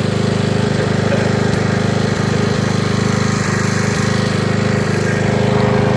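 Riding lawn mower's engine running steadily with a rapid, even putter.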